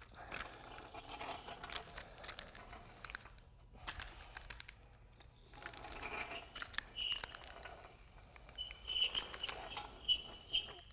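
Spiked porcupine roller back-rolling through wet, freshly poured MMA resin flooring: a faint, sticky crackling patter, with a few short high squeaks in the last few seconds.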